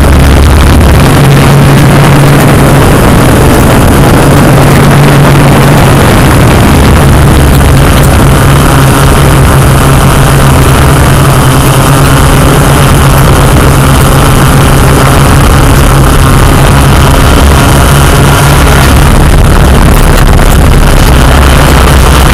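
Yuneec Typhoon Q500 quadcopter's motors and propellers running, a loud steady whir with a low hum that swells and fades a few times.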